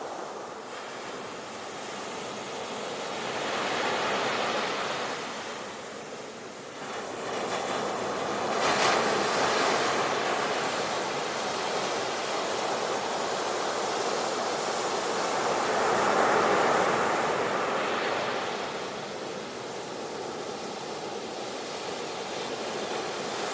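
Sea waves breaking and washing in as surf, in slow swells that rise and fall every few seconds.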